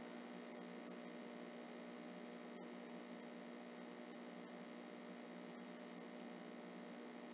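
Faint steady electrical mains hum, with a couple of faint ticks near the middle.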